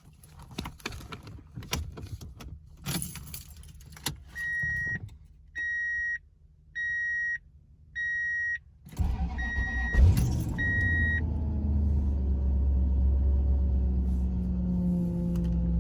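Keys jangle at the ignition and the dashboard warning chime beeps six times, about once a second. About nine seconds in, the Toyota Tundra's 4.7-litre V8 cranks, starts and settles into a steady idle, with the whine of the failing power steering pump.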